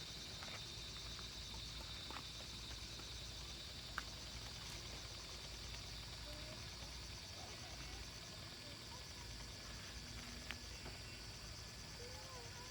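Insects chirring steadily in a high, rapidly pulsing trill over a low rumble, with two sharp clicks.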